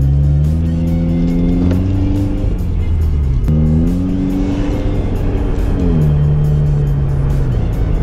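2004 Honda Accord's 2.4-litre four-cylinder engine, breathing through an Injen short ram intake, heard from inside the cabin while driving. The engine note climbs, drops suddenly about three and a half seconds in, climbs again, then falls to a lower steady pitch about six seconds in.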